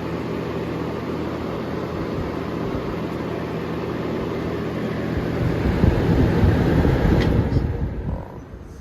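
Electric box fan running on high speed: steady rush of air over a motor hum. About five and a half seconds in a louder low rumble rises, there is a click near seven seconds, and the sound dies away about eight seconds in as the fan is shut off.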